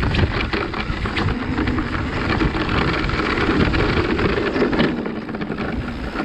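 Mountain bike riding fast down a dirt trail: tyres rolling over loose earth, with the bike rattling and clattering over bumps and wind buffeting the microphone. It gets a little quieter about five seconds in as the bike slows.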